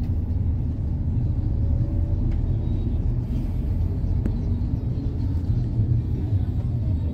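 Steady low rumble of a vehicle driving, heard from inside it: engine and road noise, with a faint click about four seconds in.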